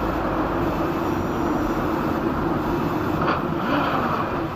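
Car driving in traffic, its steady engine and road noise picked up by a dashcam inside the cabin. A couple of short sharper sounds come in about three and a half seconds in.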